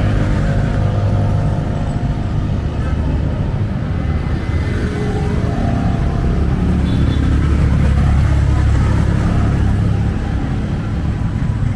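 A motor vehicle's engine running close by, a low steady rumble over city traffic noise.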